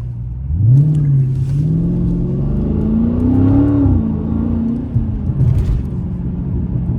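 Straight-piped Dodge Scat Pack's 392 HEMI V8 exhaust accelerating: the note climbs in pitch for about three seconds, drops as the throttle comes off, then settles to a steady cruise, with a few sharp pops about five seconds in.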